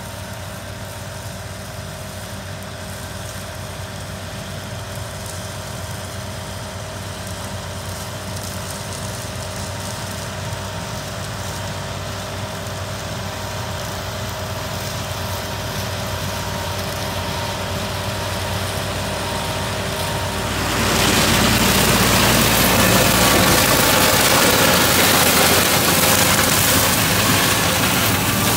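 Tractor engine driving a Seppi WBS flail mulcher, running steadily and slowly getting louder. About 21 seconds in, the sound jumps to a much louder noise spread across all pitches, typical of the flail rotor chewing into vegetation.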